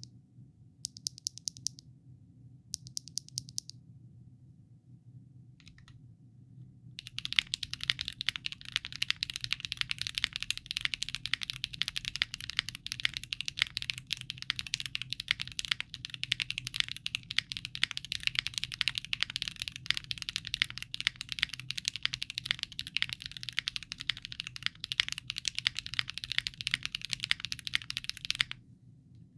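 Mechanical keyboard with Tecsee Bocchi linear switches on a POM plate and GMK Norse keycaps: a few short bursts of keystrokes in the first six seconds, then fast, continuous typing from about seven seconds in that stops shortly before the end. A faint low hum sits underneath.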